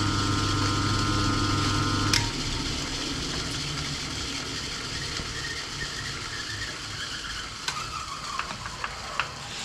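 1940s Qualos lathe running with a steady hum and gear whine that cut off suddenly about two seconds in, just after a sharp click, as the machine is stopped. After that come a low background noise and scattered light clicks and knocks of metal handling near the end.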